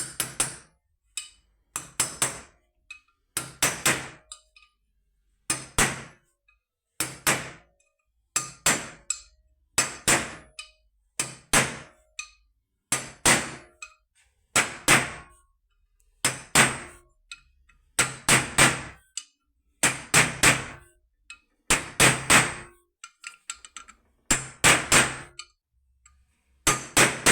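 Hammer blows seating a 6303 RS ball bearing on an alternator, fitted cold rather than heated: sharp ringing strikes in quick groups of two to four, a group about every one and a half seconds.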